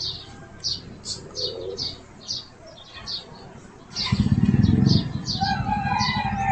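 A small bird chirping over and over, short high chirps about two or three times a second. About four seconds in, a louder low pulsing rumble joins and becomes the loudest sound.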